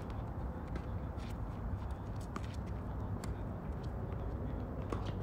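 A tennis rally on a hard court: scattered short, sharp knocks of racket strikes, ball bounces and shoe steps over a steady low rumble.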